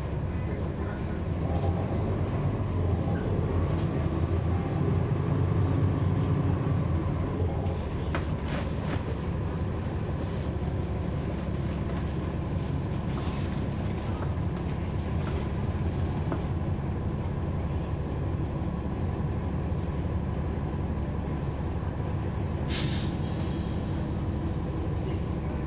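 Cummins ISL9 diesel engine of a transit bus heard from inside the cabin, running under load and growing louder for a few seconds near the start, then steady. A short burst of air hiss from the air brakes comes near the end, with light rattles along the way.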